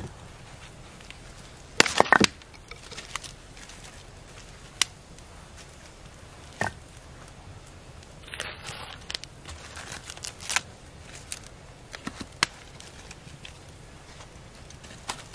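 Split firewood pieces knocking and clacking against each other and the steel grate of a fire ring as they are handled and stacked. There is a cluster of loud knocks about two seconds in, single clacks after that, and a short rustle of paper crinkling near the middle.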